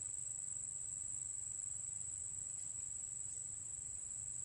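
Insects trilling outdoors: one faint, steady high-pitched tone that never breaks, over a low rumble.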